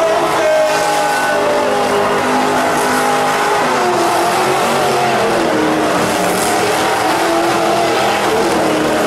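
Lifted off-road Jeep's engine revving hard on a dirt course. Its pitch drops a little past a third of the way through, then climbs again.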